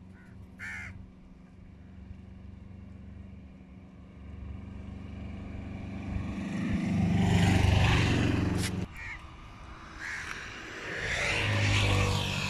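Motor vehicles passing by, one after another: the first swells up and fades about eight seconds in, the second builds near the end. A crow caws briefly about a second in.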